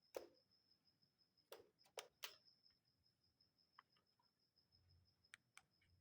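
Faint, sharp clicks or taps, a few in a cluster near the start and a pair near the end, over a steady high-pitched whine.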